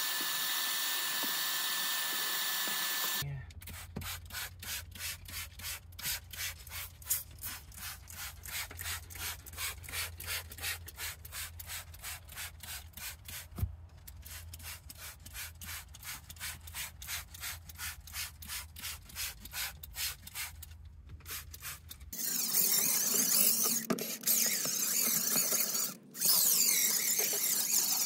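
A vacuum hose and wand sucking steadily on carpet with a thin whistle. This cuts off after about three seconds and gives way to quieter, even rubbing strokes about twice a second over a low hum. About 22 seconds in, a DeWalt cordless impact driver starts spinning a stiff drill brush against the carpet, loud and harsh, with a brief stop near the end.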